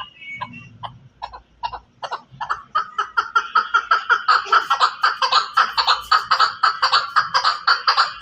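Chukar partridge (chakor) calling: spaced clucking notes that speed up about three seconds in into a fast, loud run of chuk notes, about six a second.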